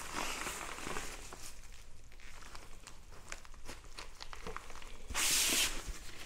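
Therm-a-Rest NeoAir XTherm Max inflatable sleeping pad being rolled up by hand: its thin fabric crinkling and rustling with many small ticks, and a louder rush of hissing rustle for about half a second near the end.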